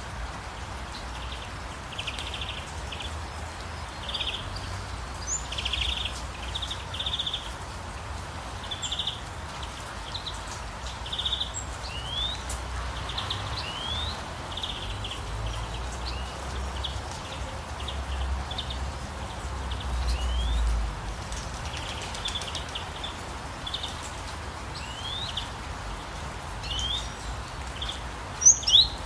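Steady rain hiss with songbirds chirping throughout: short repeated chirps and quick rising whistled notes. A low rumble swells about two-thirds through, and a couple of sharp, loud clicks come near the end.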